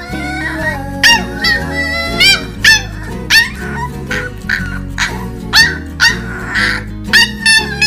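Corgi puppy yelping and whining in a string of short, high calls that rise and fall in pitch, over background music.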